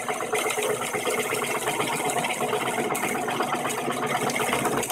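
Drill press boring a 1.5-inch hole into a 2x4 with a large wood bit: a steady motor hum under a fast rattling chatter as the bit cuts and grabs at the wood.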